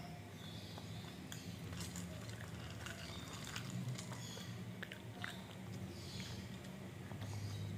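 Small dog chewing and crunching hard treats: an irregular run of short crunches.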